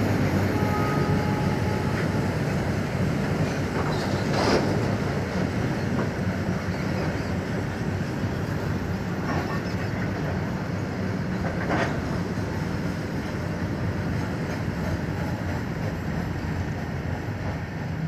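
Covered freight wagons of a goods train rolling past: a steady rumble of steel wheels on the rails, with clickety-clack and a few brief knocks. The rumble eases slightly toward the end as the tail of the train approaches.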